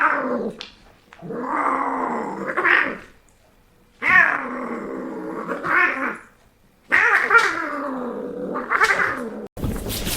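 A domestic cat yowling: a short cry at the start, then three long, drawn-out wavering yowls of about two seconds each with short pauses between. The yowling cuts off suddenly near the end and gives way to a burst of noise.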